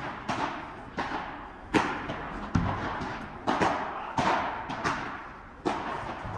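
Padel ball being hit back and forth in a rally: about eight sharp paddle strikes and bounces, one every three-quarters of a second or so, each echoing in the indoor court.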